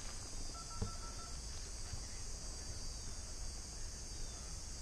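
Insects droning steadily in dry brush, a continuous high-pitched hum. A short, faint steady tone sounds for under a second about half a second in, with a soft click in the middle of it.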